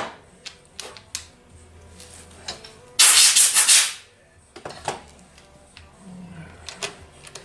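Light clicks and knocks of hand tools and parts on a chainsaw being reassembled, with a loud burst of hissing about three seconds in that lasts about a second.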